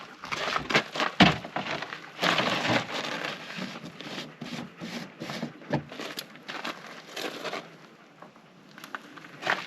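Handling noises: scattered knocks, clicks and rustling as hoses and containers are moved about, with a short rushing noise about two seconds in.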